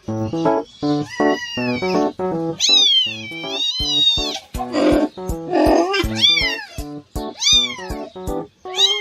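A cat meowing over and over in high, drawn-out meows, the longest one about three seconds in and wavering in pitch, with a rougher, harsher call just after. Background keyboard music with an even beat plays underneath.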